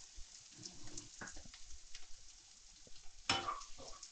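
Wooden spatula stirring and scraping broad beans in a thick masala in a non-stick frying pan, over a faint sizzle of frying. The stirring strokes are scattered, the loudest about three seconds in.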